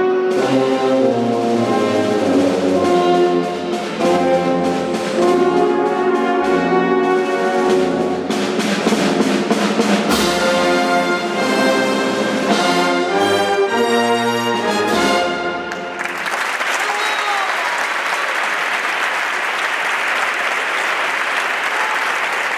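Wind band of brass and woodwinds playing a processional march that ends about two-thirds of the way through, followed by audience applause.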